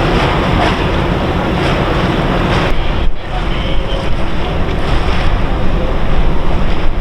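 Wind buffeting the microphone: a loud, steady rushing noise that briefly dips about three seconds in.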